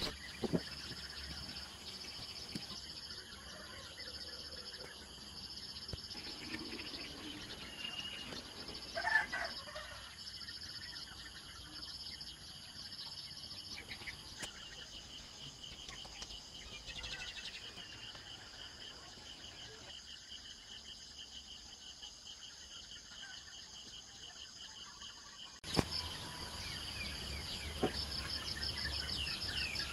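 Insects chirping in repeated pulsing trills, with an occasional bird call; the background shifts abruptly near the end.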